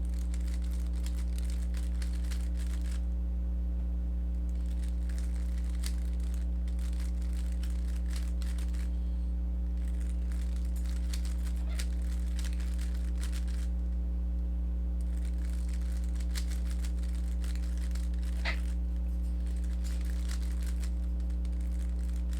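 Rubik's cube being turned through an algorithm: quick runs of faint clicking and rattling from the layers, with short pauses between runs. A steady low electrical hum underlies it throughout.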